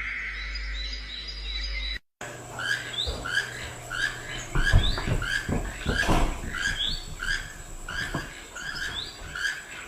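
After a sudden break about two seconds in, a bird chirps over and over in short rising notes, about two a second, with a few low thumps near the middle.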